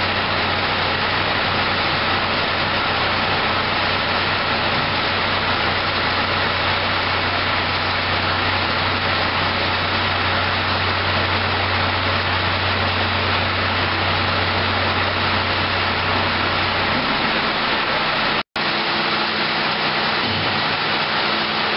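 Septic vacuum truck's machinery running as the hydraulic hoist tilts the tank up: a loud, even rushing noise over a low steady hum. The hum drops away about four seconds before the end, and the sound cuts out for an instant shortly after.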